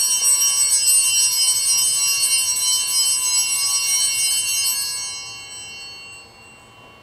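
Altar bells rung at the elevation of the chalice in the consecration at Mass: a bright cluster of small bells shaken for about five seconds, then ringing away over the last two seconds.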